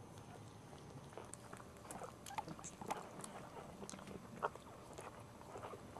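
Very young puppies giving faint, short squeaks while their mother licks them, with small wet licking clicks.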